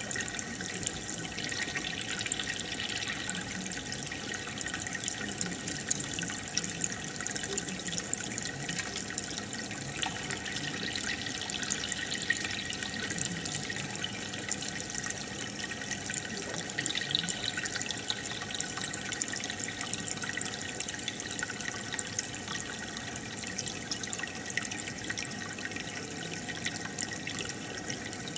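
Water in an aquarium trickling and bubbling steadily, with a fine continuous crackle.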